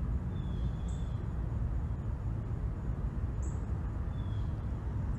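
Steady low rumble of ocean surf breaking on a beach, with two faint short high chirps, about a second in and again a little after four seconds.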